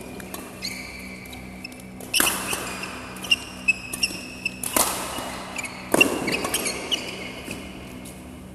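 Fast badminton rally: rackets smacking the shuttlecock, three hard hits about two and a half seconds then a second apart standing out and echoing in the hall, with short shoe squeaks on the court between them.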